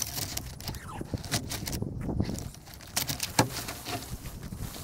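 Rustling and crackling of a large tent's fabric being walked on, lifted and gathered up off the ground, with irregular sharp clicks and crinkles.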